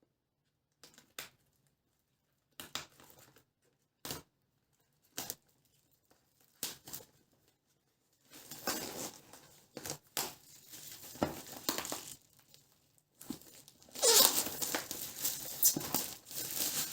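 Gift packaging being handled and opened by hand: a few scattered rustles and taps, then from about eight seconds in continuous tearing and crinkling of wrapping, loudest near the end.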